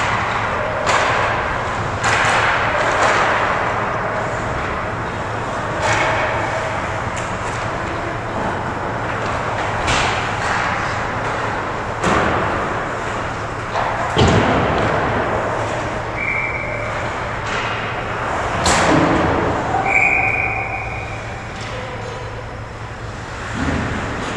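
Ice hockey game in an arena: steady rink noise with scattered sharp clacks and knocks of sticks, puck and skates, the loudest about fourteen seconds in. Two short high tones sound later on.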